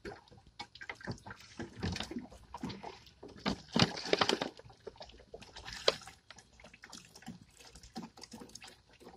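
Water glugging out of an upturned plastic soda bottle into the plastic tank of a battery-powered backpack sprayer, in irregular gurgles and splashes, loudest a little under halfway through.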